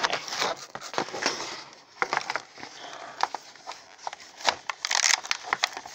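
Thin clear plastic packaging crinkling and crackling in irregular bursts as a toy egg is pulled out of it, with short clicks of the plastic.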